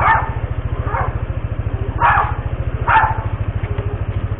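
A dog barking, four sharp barks about a second apart, over a motorcycle engine idling steadily underneath.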